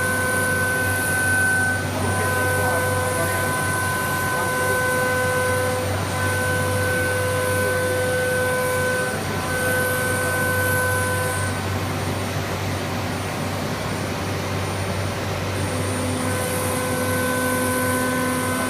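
CNC nesting machining centre running: a steady mechanical hum with a pitched whine that keeps cutting in and out every second or two, and a high hiss that comes and goes.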